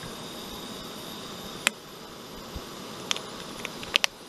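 Several sharp metal clicks and clinks as a small camping pot is set on a backpacking stove and handled, the loudest about a third of the way in and a quick pair near the end, with a plastic water bottle being capped. Under them runs a steady faint hiss.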